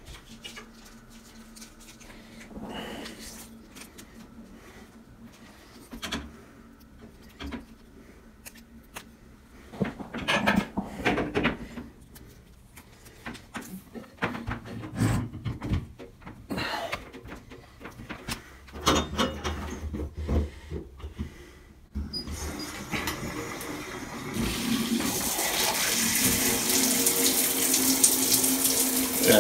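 Scattered knocks and handling noise, then about two-thirds of the way through a shower is turned on: water hissing steadily from a handheld shower head, growing louder a couple of seconds later.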